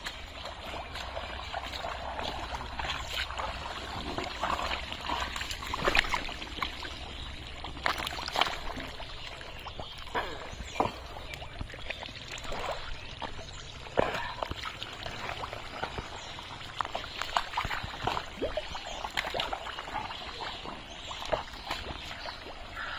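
Wading and groping in a drained pond's thick mud and shallow water: wet squelching and sloshing, with sharp splashes every second or two as hands and legs plunge in and fish are pulled out.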